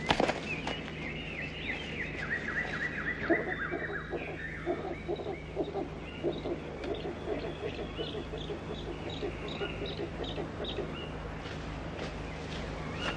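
Birds singing: a falling run of chirps in the first few seconds, then an owl calling in a long series of short low hoots while small birds chirp over it.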